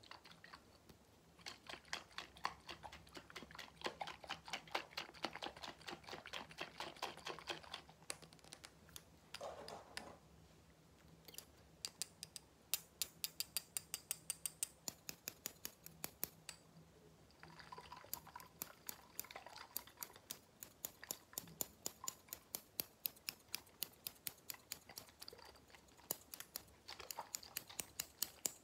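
Fast tapping of fingers on a container of blue liquid, the 'blue potion', many quick taps a second with a couple of brief pauses.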